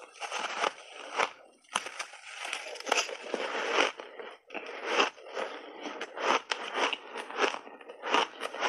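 Close-miked crunching and chewing of refrozen ice chunks: big bites of grainy ice crushed between the teeth in rapid, irregular crunches.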